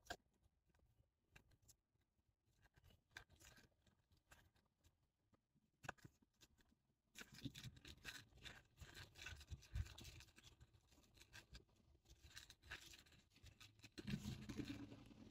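Near silence, with faint scattered clicks and rustling that grow a little louder about halfway through.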